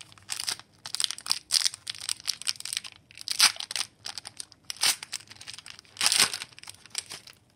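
Foil wrapper of an Upper Deck hockey card pack crinkling and tearing as it is pulled open by hand, in a string of irregular crackles, loudest about three and a half and six seconds in.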